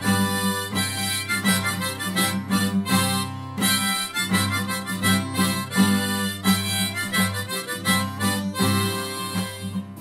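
Harmonica playing a melody over a strummed acoustic guitar: an instrumental break in a folk song, with no singing.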